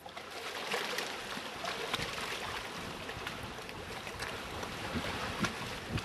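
Choppy water lapping and splashing at the shore: a steady wash broken by many small splashes.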